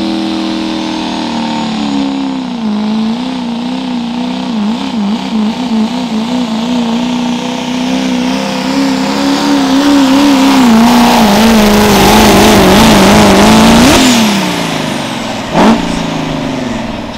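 Diesel pickup truck engine at full throttle pulling a sled, its pitch wavering up and down as it works and building louder to a peak. Near the end the engine note falls away suddenly as it comes off the throttle, and a short, loud pop follows.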